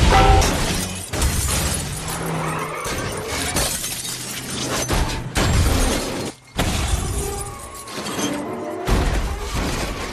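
Film crash sound effects: a van smashing into parked cars, with several heavy impacts and glass shattering.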